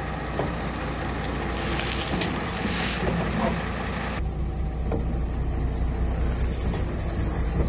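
Heavy truck engine running low and steady while the truck creeps forward, with a brief hiss about three seconds in. The sound changes abruptly about four seconds in.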